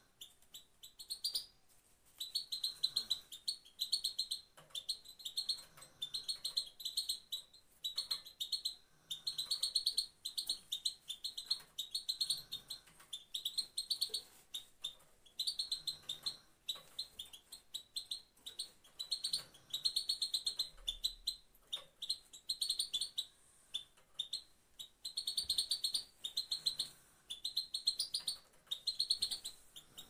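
Female European goldfinch giving its rapid 'pat-pat' call: short bursts of fast, high twittering ticks, repeated about every one to two seconds. This is the call keepers play to bring male goldfinches into breeding condition.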